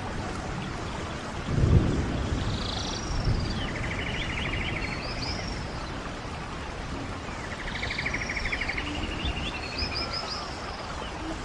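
Running stream water with a songbird repeating a phrase twice, a fast trill followed by higher chirps. A brief low splash or gurgle of water about one and a half seconds in.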